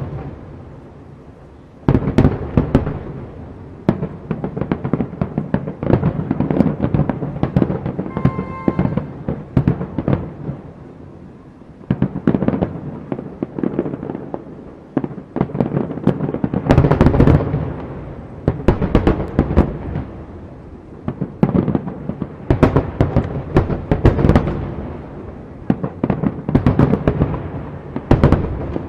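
Aerial fireworks display. A single sharp bang comes at the start, then after about two seconds a dense barrage of rapid bangs and crackling bursts follows, coming in waves that swell and ease off.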